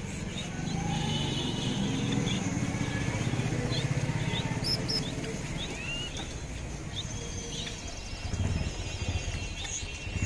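Small birds chirping: scattered short high chirps, with one rising call about five seconds in, over a steady low rumble of background noise.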